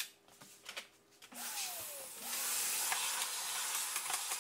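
A steady hissing noise starts about a second and a half in and keeps going.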